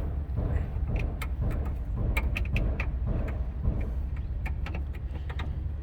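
Scattered light clicks and taps of tools and oil containers being handled, over a steady low rumble.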